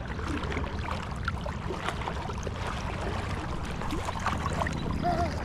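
Legs wading upstream through a shallow creek against the current, water sloshing and splashing irregularly around them over the steady rush of flowing water.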